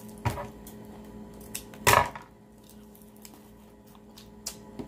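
A few short, sharp noises from a freeze pop in its plastic sleeve being handled and eaten at the mouth, the loudest about two seconds in, over a steady low electrical hum.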